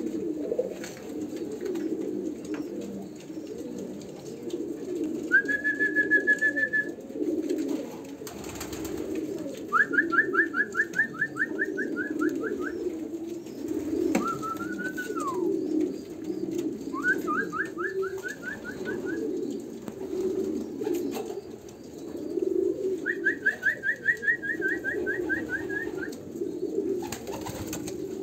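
Pigeons cooing without a break in a low, rolling murmur. Five short runs of rapid high-pitched chirping notes cut through it, about 5, 10, 17 and 23 seconds in, with one rising-and-falling call near the middle.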